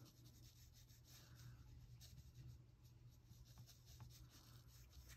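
Faint strokes of a wet brush on paper, blending water-soluble wax pastel on a colouring page, with a few light ticks; otherwise near silence.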